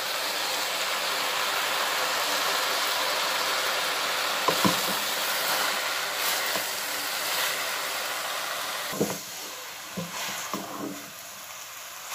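Noodles and vegetables sizzling in a hot pot while being stirred with a wooden spoon: a steady hiss that drops off about nine seconds in, with a few knocks and scrapes of the spoon against the pot.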